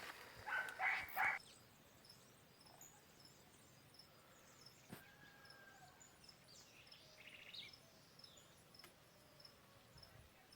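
Three short, loud pitched animal calls about a second in, then faint, evenly repeated high chirps and a few soft whistled notes from birds in caatinga scrub.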